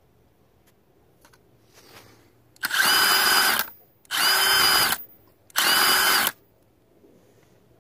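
Milwaukee M18 Fuel One-Key impact driver spinning freely with a socket fitted, run in three short trigger pulls of about a second each. Its brushless motor whines steadily with no hammering, since there is no load.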